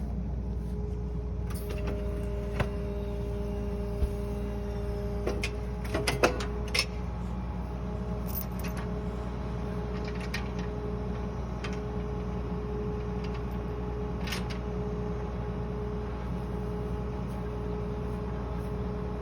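A tractor engine running steadily, with a cluster of sharp clicks and knocks between about two and seven seconds in.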